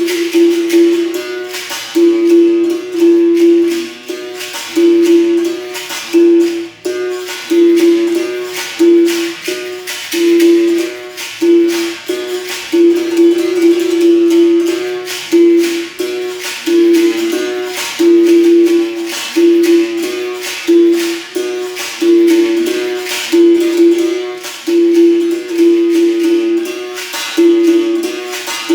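Berimbau played in a steady capoeira rhythm, its string struck over and over, mostly on one note, with the caxixi basket rattle shaking along with the strokes.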